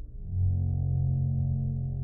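Background music: low sustained synthesizer-like chord, a new chord entering about a third of a second in and held.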